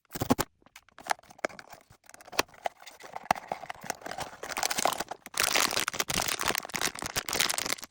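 Blind box packaging being opened by hand: scattered clicks and knocks, then dense crinkling and rustling of the wrapping from about halfway through.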